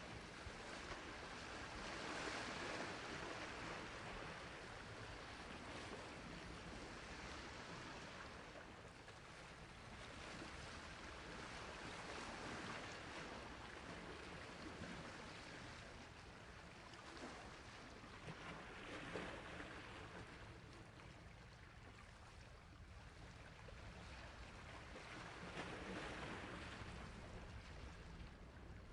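Sea waves washing onto a shore, a continuous rushing surf that swells and falls back every several seconds.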